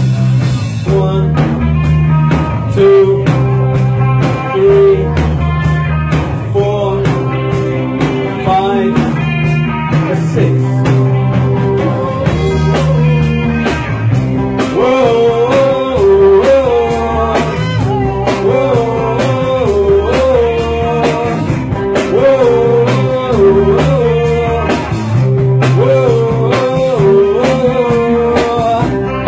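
Live rock band of bass guitar, electric guitar and drum kit playing a steady mid-tempo groove, the bass repeating a pulsing pattern under the drums.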